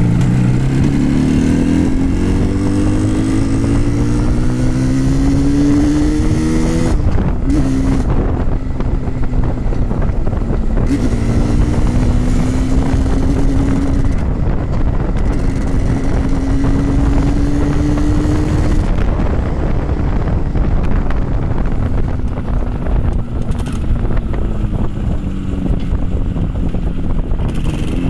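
Yamaha RD350's two-stroke twin engine under way, its pitch climbing for the first several seconds, dropping suddenly about seven seconds in, rising slowly again and then sinking over the last several seconds as the bike eases off. Wind rushes over the earbud microphone throughout.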